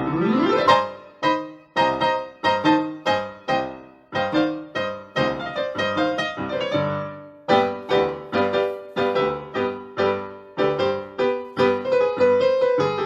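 Keyboard, with a piano or electric-piano sound, playing a tango accompaniment in short, clipped chords to a steady beat, with a rising slide at the start.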